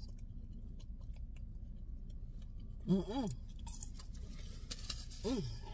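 A person chewing french fries, with faint crunching and small clicks, and two short hummed "mm" sounds about three and five seconds in, over a steady low hum.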